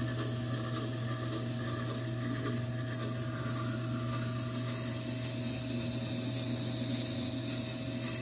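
Tormek T4 wet sharpener running with a steady motor hum, and a knife edge grinding under light pressure against its turning coarse-graded wet stone, a steady hiss that grows a little brighter about halfway through.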